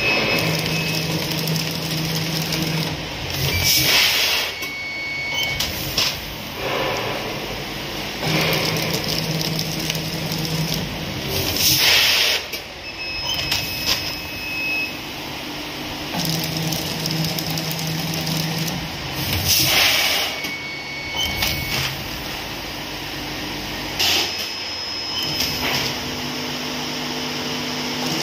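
Two-head automatic weighing and pouch-packing machine running through its cycle. A low hum lasts a couple of seconds, then comes a loud rushing burst with short high tones, and the pattern repeats about every eight seconds.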